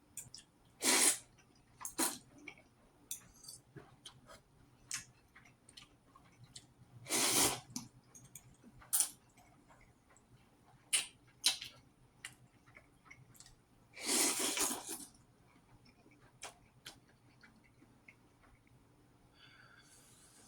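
Eating sounds from someone working through a bowl of spicy ramen: scattered small clicks and smacks, with three longer hissing bursts spread through.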